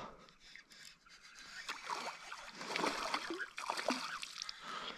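A small hooked golden perch (yellow belly) splashing and thrashing at the water's surface on a lure line, in an irregular run of splashes starting about a second and a half in.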